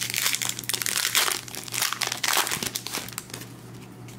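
Foil wrapper of a Panini Contenders basketball card pack crinkling and crackling as it is torn open by hand, the crinkling easing off about three seconds in.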